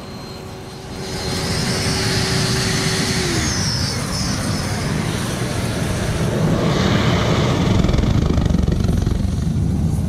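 Steam jetting and hissing from the 2.6 mm nozzle of a 40-foot mono-tube boiler coil at about 279 degrees. Under it is a low rumble from the gas ring burner firing the coil, and the whole sound swells louder about a second in. A steady hum drops in pitch a few seconds in.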